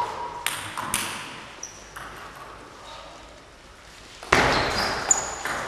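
Table tennis ball clicking off bats and the table in a reverberant sports hall: a few sharp ringing taps near the start, a quieter pause, then a louder burst of hits and noise from about four and a half seconds in as play resumes.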